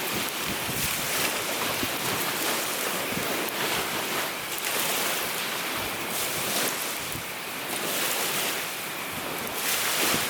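Strong wind blowing steadily in gusts, with wind buffeting the microphone.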